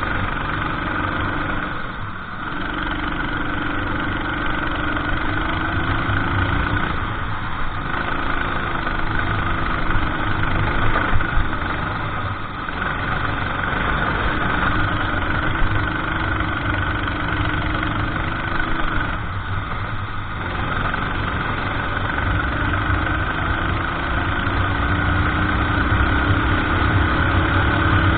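Racing kart engine running under load, its pitch climbing slowly and then dropping back about four times as the kart slows for corners and accelerates out again.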